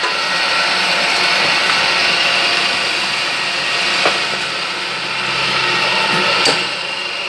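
Homemade motor-driven winding puller running, pulling old copper windings out of an electric motor's stator. A steady mechanical running noise with a sharp click about four seconds in and another near the end.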